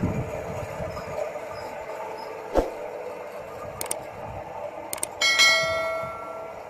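Steady hum of a belt-driven flywheel motor-generator rig running. A single knock comes about two and a half seconds in. Later two clicks are followed by a bell chime from a subscribe-button animation; the chime is the loudest sound and fades over about a second.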